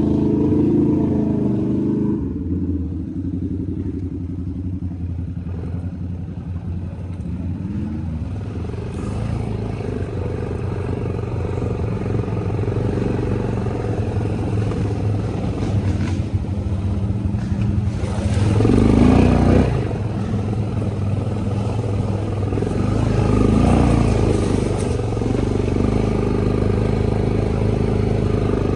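ATV engine running steadily while riding, with the throttle opened up twice in the second half, the louder of the two about two thirds of the way through.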